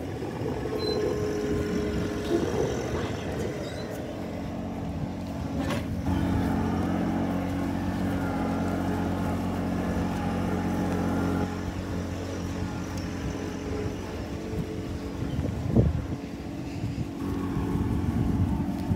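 Compact John Deere tractor's diesel engine running steadily at low speed as it pulls a small trailer, heard from behind.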